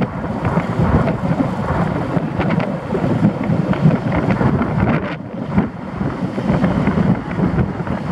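Wind buffeting the microphone of a camera on the roof of a moving car: a loud, dense rush of air that rises and falls, heaviest in the low range.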